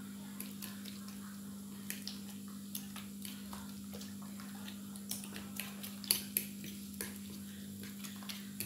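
Spoon clinking and scraping against a ceramic bowl and a glass dish as salted egg white is spooned onto raw minced pork, in scattered light clicks with the sharpest pair about six seconds in. A steady low hum runs underneath.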